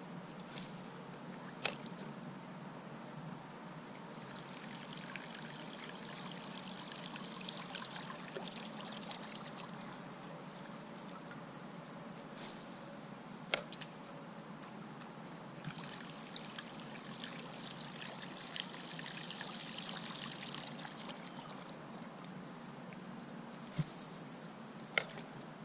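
Quiet river ambience: water trickling and lapping, with a steady high-pitched insect buzz that stops near the end. A few sharp clicks sound along the way.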